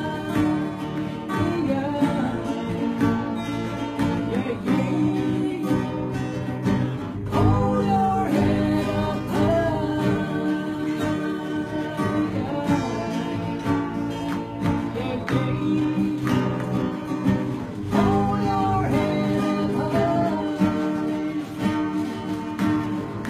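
Two acoustic guitars strummed together, with a voice singing a melody over them.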